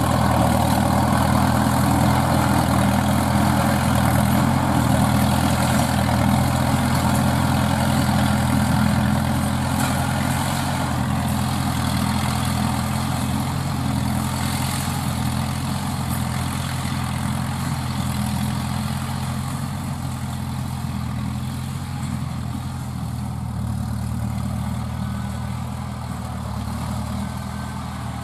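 Engine of a homemade crawler-track rotary tiller running steadily under load as it tills dry stubble, a low even hum that grows gradually quieter through the second half.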